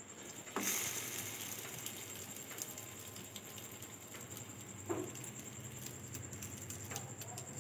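Egg-coated bread slice laid into hot oil in a frying pan, setting off a sudden sizzle about half a second in that keeps on as a steady hiss with a few faint clicks.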